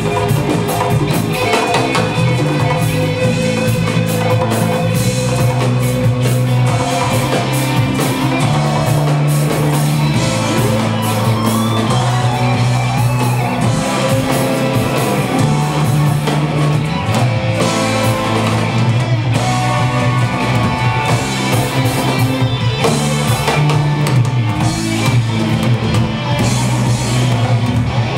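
Live band playing: drum kit, electric guitar and keyboards over a strong bass line of held notes that change every second or two.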